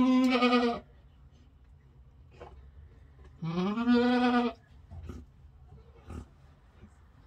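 Boer goat doe in labor bleating twice, two long calls that rise at the start and then hold steady, the second about three and a half seconds in: cries of pain during contractions.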